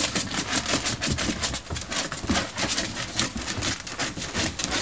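Weimaraner puppies' paws and claws scrabbling and thumping on an upturned hard plastic pool: a fast, irregular clatter of many small knocks.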